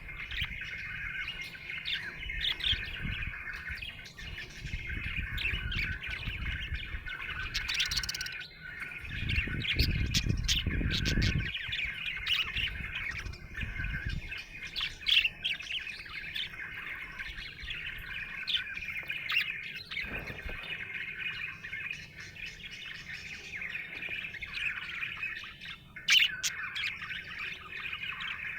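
Budgerigar warbling and chattering without a break, with many short, sharp chirps over the warble. A low rumble lies under it for a couple of seconds about a third of the way through.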